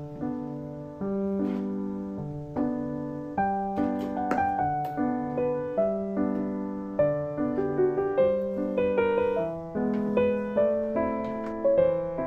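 Gentle background piano music, with soft chords and a simple melody changing about once a second.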